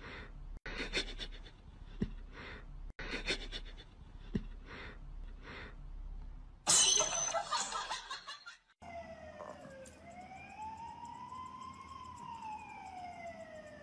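A small poodle howling: one long howl that slowly rises and then falls, starting about nine seconds in. Before it come faint small sounds and a short loud noisy burst around seven seconds in.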